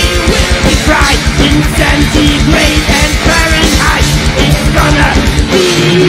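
Melodic heavy metal band playing live: distorted electric guitars and bass over rapid, steady kick-drum strokes. The kick-drum pattern drops out near the end.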